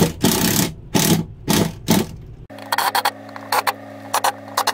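Cordless drill driving the cooling unit's mounting screws into the refrigerator, in several short bursts. About halfway through come a string of sharp clicks over a steady low hum.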